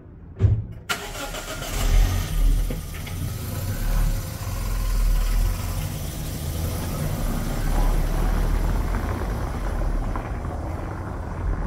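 A car engine starting about a second in, then running steadily.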